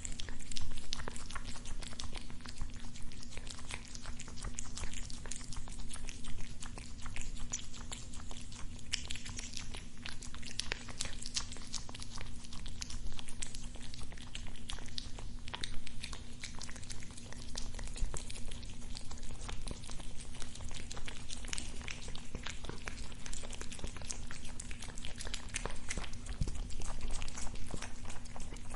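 A cat chewing food up close, with many small irregular crunches and clicks, over a steady low hum.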